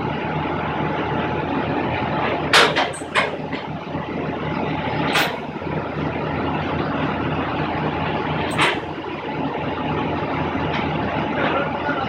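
Steady hum and road noise of a vehicle interior, with several short sharp clicks or knocks; the loudest is about two and a half seconds in.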